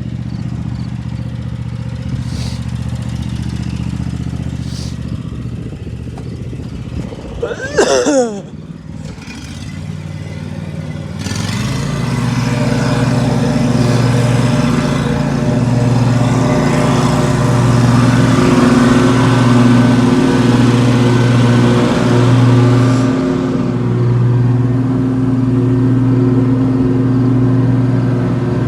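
Lawn mower engine running steadily. About eight seconds in there is a short, loud sound that falls quickly in pitch. About eleven seconds in the engine gets louder and holds at a higher speed.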